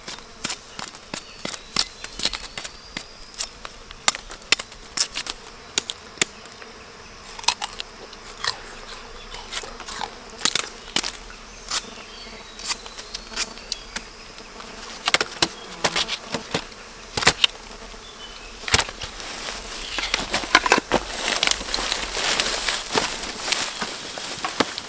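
An insect buzzing close by, over many sharp snaps and crackles that come irregularly throughout, thickening into a denser crackle near the end.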